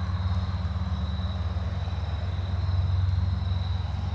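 A steady low motor-like hum with a fast flutter, and a faint high steady whine above it.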